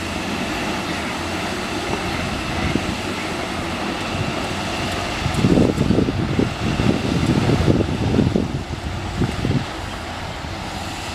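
Diesel engine of a heavy tipper truck running as the truck drives slowly over rough dirt ground. Louder, uneven low rumbling comes in for a few seconds in the middle.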